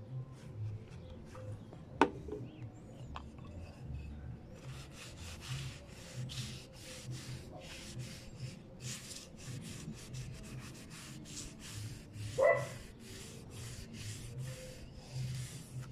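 Rubber-gloved hand rubbing teak oil into a charred pine board in quick, repeated brushing strokes, about three a second. There is a sharp click about two seconds in and a short squeak a little after twelve seconds.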